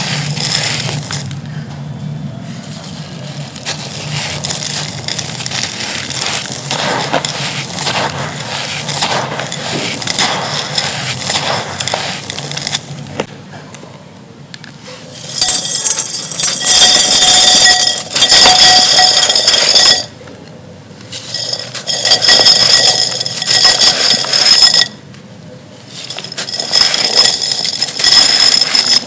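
Soft clay pot pieces being crumbled, a dense gritty crackling and crunching with a faint glassy clink. It is quieter in the first half, then comes in three loud crunching stretches from about halfway, with short pauses between them.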